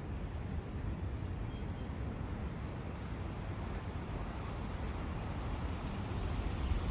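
Steady rush of a forest brook, with a heavy low rumble under it that swells slightly near the end.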